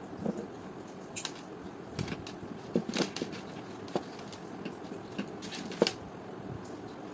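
Handling noises from the steam iron being worked on: a dozen or so light, irregular clicks and taps of small parts, over a steady low hiss.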